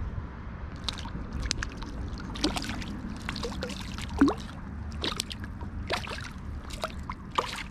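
Flowing river water under a steady low rush, with a dozen or so short, irregular splashes and trickles close by.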